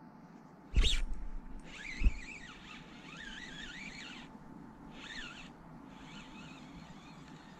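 Fishing reel cranked in short bursts during a jig retrieve, its gears giving a wavering whine with brief pauses between turns. A loud knock comes about a second in and a sharp click about two seconds in.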